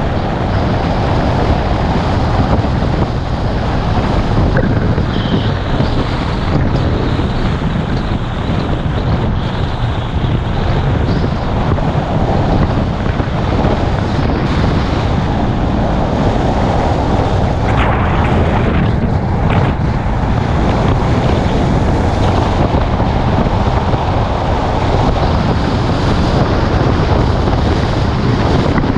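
Wind buffeting the microphone of a GoPro on a moving car, over the steady road and tyre noise of the car driving along a street.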